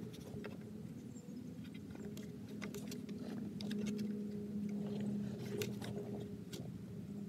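Small clicks and scrapes of hands working the mounting hardware and rubber clamp of a spare axle shaft, over a steady low hum.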